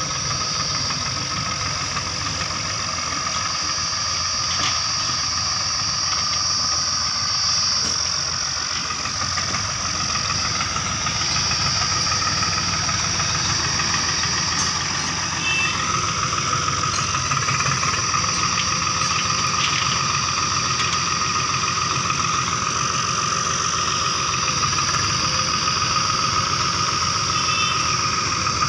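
Swaraj 744 FE tractor's three-cylinder diesel engine running steadily with a loaded trolley hitched, over a steady high-pitched whine.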